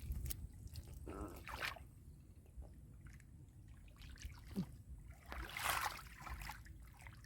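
Shallow muddy water being stirred by hand: small drips, trickles and sloshes, with a bigger splash about six seconds in.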